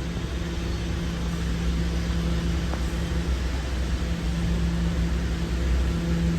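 Steady hum and low rumble inside a New York City Subway A train car, with a constant droning tone from the car's equipment.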